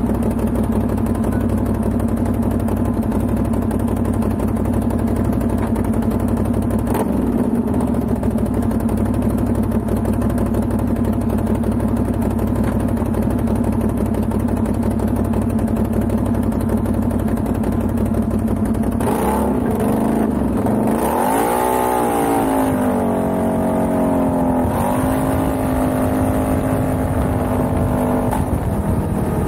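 Can-Am Outlander XMR ATV engine held at a steady pitch as the quad circles on loose gravel. About two-thirds of the way through, the revs rise and fall several times before settling again.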